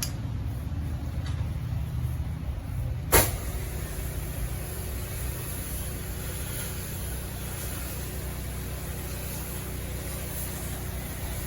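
DeWalt 3.5 GPM pressure washer's engine running steadily. About three seconds in there is a sharp click, and after it a steady hiss of the spray, with bleach and surfactant soap being sprayed through a 25-degree tip.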